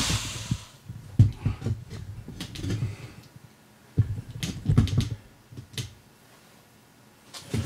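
Scattered light knocks, taps and clicks of handling. They come in clusters about a second in, around two and a half seconds, and again around four to six seconds in. A steady hiss dies away in the first half second.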